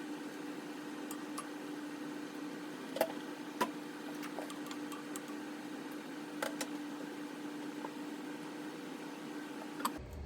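A steady machine hum with a low tone, with a few light clicks and taps scattered through it; the hum cuts off just before the end.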